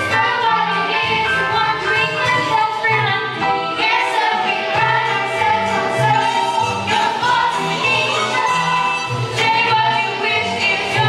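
Stage-musical song performed live: an ensemble of young voices singing as a chorus over an upbeat accompaniment with a steady, pulsing beat.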